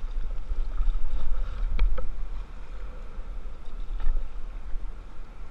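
Canoe paddle strokes dipping and splashing in flat water, with a few sharp clicks about two seconds in and again near four seconds. A steady low wind rumble sits on the helmet-mounted microphone.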